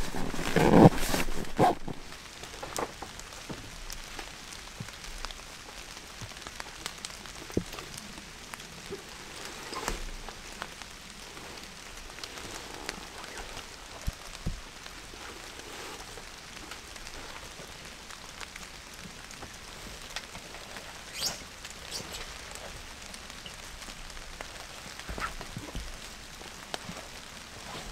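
Light rain pattering steadily, with scattered louder drops. A brief louder rustling knock comes right at the start.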